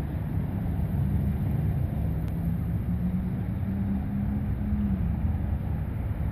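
Low rumble and engine drone of a distant, approaching diesel locomotive, its pitch stepping up slightly about halfway through, with wind buffeting the microphone.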